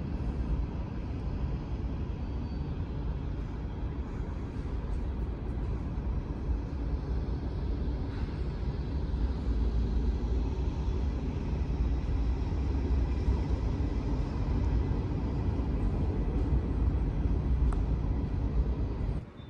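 Steady low rumbling background noise of a large workshop hall, with no distinct events; it grows slightly louder about halfway through and drops off sharply near the end.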